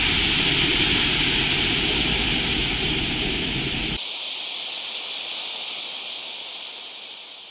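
A shallow river running above its normal level over a stony bed: a steady rushing hiss with a low rumble underneath. About four seconds in, the sound cuts to a thinner hiss of water without the rumble, which fades out near the end.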